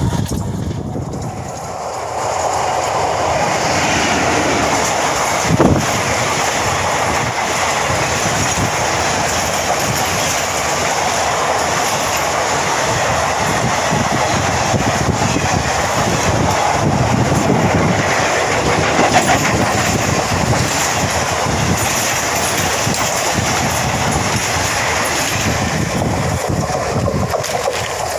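Express passenger train passing close at speed: a steady rushing rumble with the coaches' wheels clattering over the rail joints, growing loud about three seconds in as the train arrives. A single sharp knock about five and a half seconds in.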